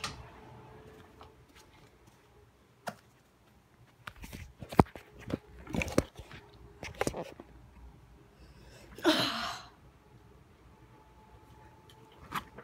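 Handling noise from a phone being carried and moved around: scattered knocks and clicks, most of them between about four and eight seconds in, and a short rustle a little after nine seconds.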